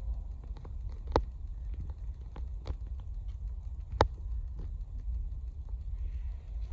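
Low steady outdoor rumble on the microphone, with a few sharp clicks; the most distinct come about a second in and about four seconds in.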